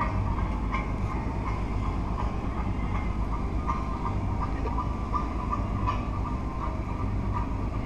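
Steady low rumble of a multi-deck river cruise ship's engines as the ship pulls away from the quay.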